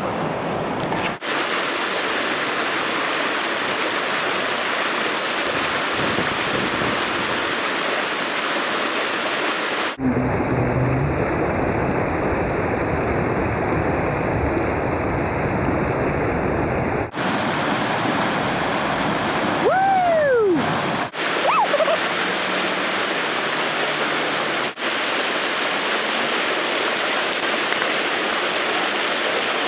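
Whitewater rapids rushing steadily, with several abrupt cuts between shots. About two-thirds of the way through, a person gives one brief falling call over the water.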